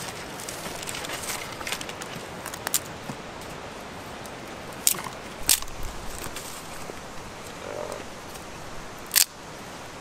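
Dry eucalyptus leaves and sticks being handled and arranged on the ground to lay a small fire, rustling, with a few sharp twig snaps. The loudest snap comes near the end.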